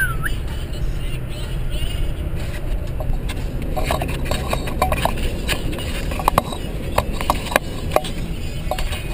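Steady low rumble of a Ford F-150 pickup's cab while driving. From about four seconds in, a run of clicks and knocks comes from a hand fumbling with the camera over the lens.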